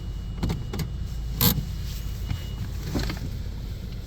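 PDQ LaserWash 360 automatic car wash heard from inside the car: a steady low rumble with a few sharp hits, the loudest about a second and a half in, and a faint steady high tone that stops a little past halfway.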